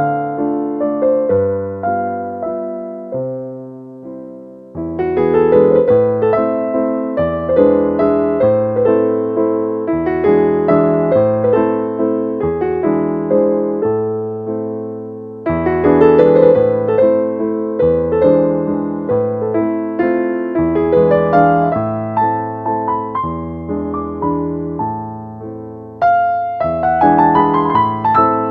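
Background piano music: a gentle melody over chords, each note struck and fading, with new phrases starting about five, fifteen and twenty-six seconds in.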